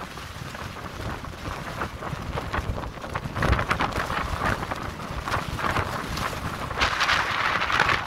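Windstorm gusting over the microphone with a low rumble, and the clear plastic sheeting of a tent rattling and crackling in it; the crackle grows stronger near the end.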